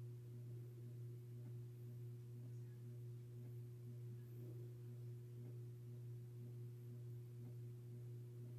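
A steady low hum with a fainter, higher steady tone above it, unchanging throughout.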